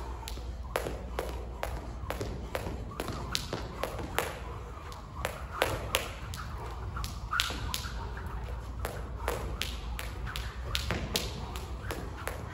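Jump rope skipping: the rope slaps the hard floor in a quick, slightly uneven rhythm of about two to three sharp slaps a second, mixed with the light taps of shoes landing. A low steady hum runs underneath.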